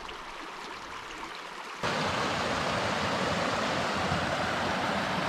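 Shallow moorland stream running over stones. About two seconds in, it switches abruptly to the louder, steady rush of water tumbling over small rocky cascades.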